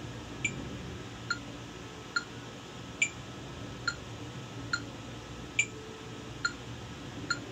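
Phone metronome app clicking steadily at about 70 beats a minute, with a higher-pitched accented click on every third beat.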